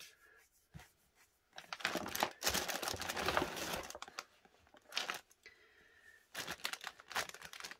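Crinkling rustle of a rolled-up cross-stitch project being handled and unrolled, in two spells: a longer one in the first half and a shorter one near the end, with small clicks between.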